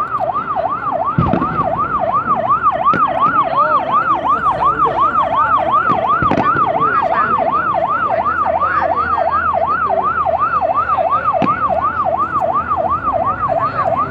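An electronic yelp siren, its pitch sweeping up and down about three times a second without a break. A few dull thuds are heard under it, about 1, 6 and 11 seconds in.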